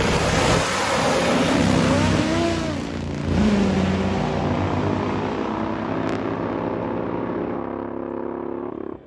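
Two nitro-burning Top Fuel drag motorcycles at full throttle down the strip. The engine noise is loudest just after launch, its pitch gliding in the first few seconds, then fades steadily as the bikes pull away downtrack.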